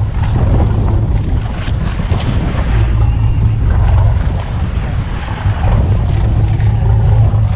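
Fishing boat's engine running with a steady low drone, with wind buffeting the microphone and the sea washing in rough, choppy water.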